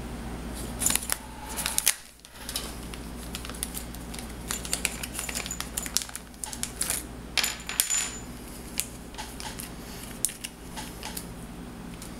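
Small metal parts of a radio-control car's driveline, the new aluminum CVD axles, clinking and clicking as they are handled. The sharp ticks come in scattered clusters, loudest about a second in and again around seven to eight seconds in.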